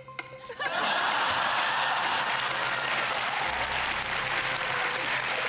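Studio audience applauding, breaking out under a second in and holding steady.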